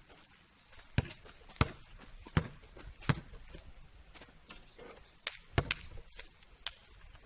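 Basketball being bounced, thrown and caught on a gravel court: about eight sharp knocks and slaps at irregular intervals, with faint footsteps in between.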